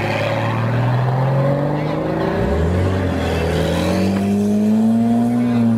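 Porsche 911 flat-six engines accelerating away one after another. One engine's pitch climbs through the first two seconds, then a second starts low about two and a half seconds in and climbs steadily, holding high near the end.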